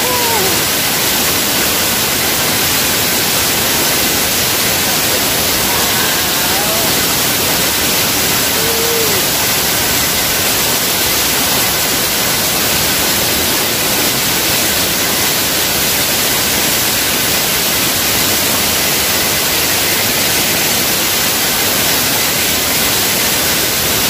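Loud, steady rush of a waterfall heard from right beneath the falling water, with spray splashing close by.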